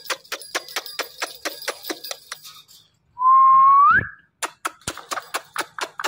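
Indian ringneck parrot making a fast run of sharp clicks, about six a second. About three seconds in it gives one loud whistle that rises at the end, then the clicking resumes.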